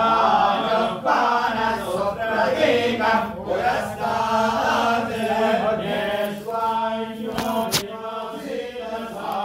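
Voices chanting Vedic Sanskrit mantras (veda ghosha) in unison without a break, over a steady low held tone. A short knock cuts in about three quarters of the way through.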